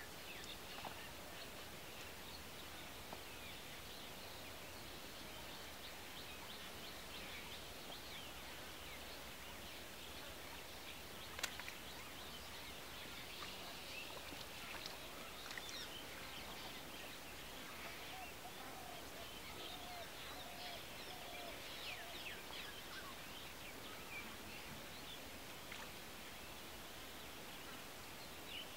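Outdoor grassland ambience: a steady faint hiss with many small bird chirps and calls scattered through it, a single sharp click a little before the middle, and a short run of lower repeated calls in the second half.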